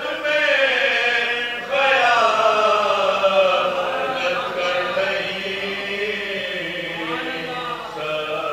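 Men's voices chanting a marsiya, the Urdu elegy for Karbala, in a slow melodic recitation of long held notes that slide in pitch.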